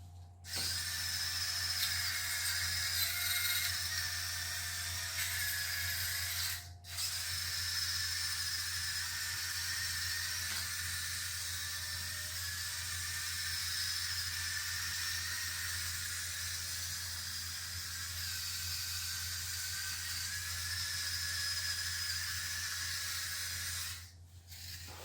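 Small electric drive motors and gears of a toy line-follower car running: a steady high whirring whine. It cuts out briefly about seven seconds in, then runs on and stops just before the end. The two motors are mismatched, one of them faulty and the other running fast on a small LiPo battery.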